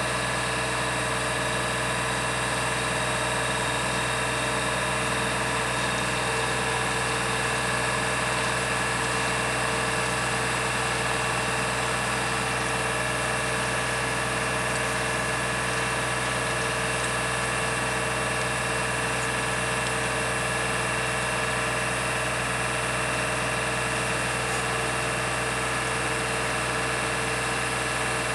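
Engine of the yellow rail-mounted ELANC catenary work gantry running steadily at idle: a constant drone with a few held tones that never changes.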